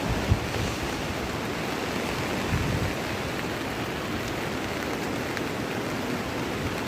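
Steady rushing of heavy rain and a rain-swollen stream, with low wind buffeting on the microphone and a short thump about a third of a second in.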